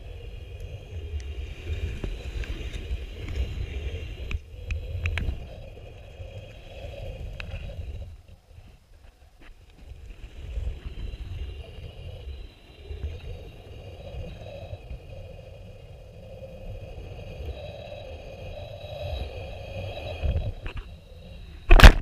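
Muffled underwater noise from a camera in a waterproof housing on a creek bed: a low rumble of water moving against the housing, with faint ticks and scrapes. A sharp, loud knock just before the end.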